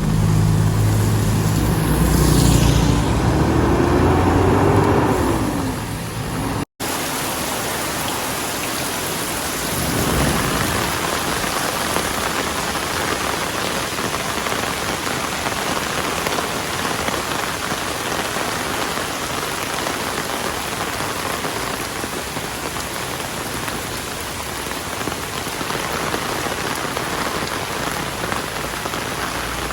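Heavy rain falling steadily in a dense hiss. For the first six seconds a motor vehicle's engine runs loudly over the rain and rises in pitch, then cuts off suddenly; a low rumble swells briefly about ten seconds in.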